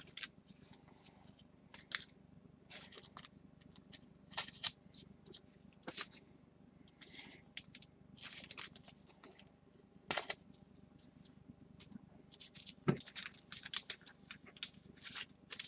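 Faint, irregular clicks, scrapes and rustles of gloved hands sliding a trading card into a plastic holder.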